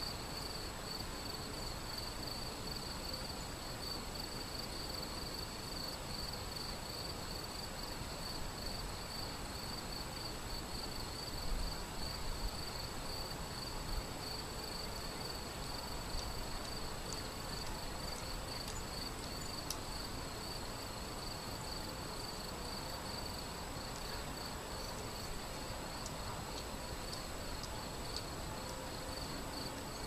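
Shallow river running over stones: a steady, even rush of water, with a continuous high chirping of insects over it.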